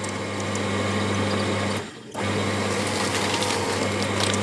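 Electric paper shredder running and cutting through junk mail: a steady motor hum with the rough rasp of paper being shredded. The motor stops briefly about two seconds in, then starts again.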